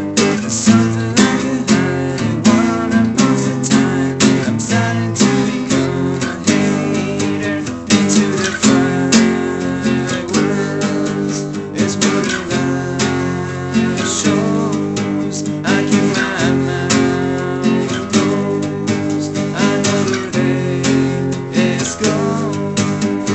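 Acoustic guitar strummed in a steady rhythm, with the chords changing every second or so.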